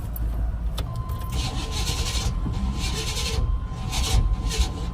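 A broken-down truck being cranked over: a click about a second in, then a steady high whine over low rumbling, with hissing that comes and goes. The truck has a starter fault that a friend put down to the flywheel or the starter.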